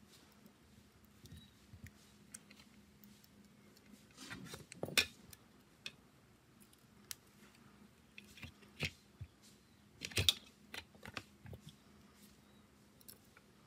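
Small hand tools and phone parts being handled on a work surface: scattered light clicks and taps, with a louder knock about five seconds in and another about ten seconds in.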